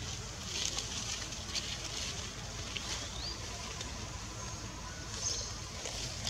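Outdoor ambience: a steady low rumble like wind on the microphone, with a few faint high crackles and one short, thin, rising chirp about three seconds in.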